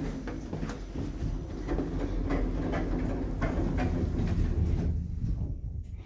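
Passenger lift closing its car doors and setting off downward: a steady low hum with regular clicks about twice a second, easing off near the end.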